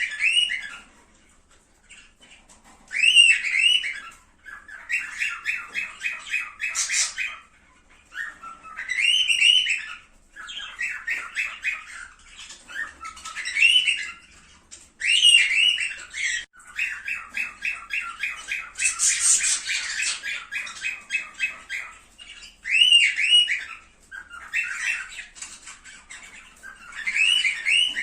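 Cockatiels calling: short rising-and-falling whistled calls, often in pairs, alternating with longer chattering runs of quick repeated notes, about five a second.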